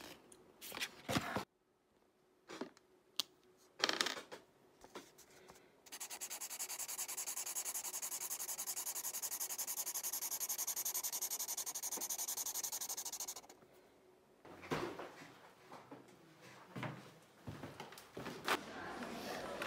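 Small objects and packaging handled with scattered clicks and rustles, then about seven seconds of steady, fast, even rubbing that stops abruptly, followed by more clicks and rustles.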